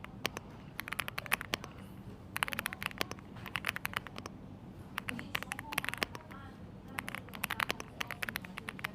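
Typing on a mechanical keyboard fitted with Kailh Tianji linear switches: rapid runs of keystroke clicks in about four bursts with short pauses between.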